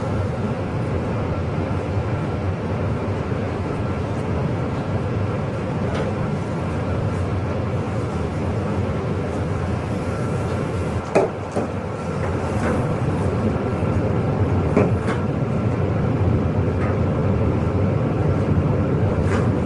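Compressed-air spray gun laying on solid blue paint: a steady hiss of air over a constant machine rumble, with a few short clicks around the middle.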